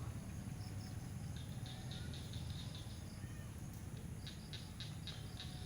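Small bird giving two runs of quick, short, high chirps over a steady low rumble.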